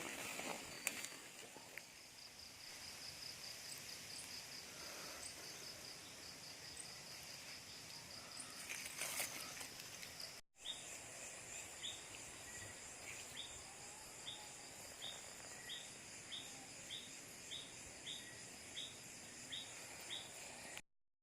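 Night insects calling: a steady high-pitched trill, then after a brief break a short chirp repeated somewhat under twice a second, with occasional rustles.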